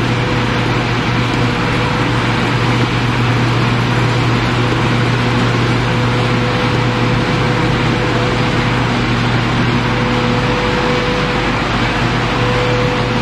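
Five-colour flexo printing and die-cutting carton machine running: a steady mechanical hum with a thin steady whine above it.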